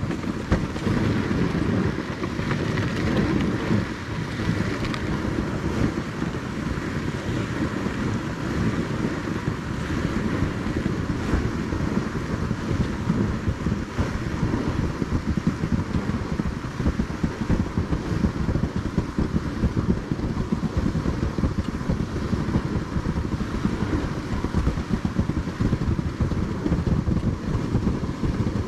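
Wind buffeting the camera microphone: a loud, steady rumble with constant flutter, starting abruptly.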